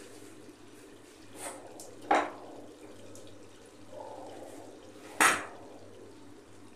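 Boiled rice being tipped into a metal pot of chicken gravy, with two sharp clanks of metal against the pot, about two seconds and five seconds in.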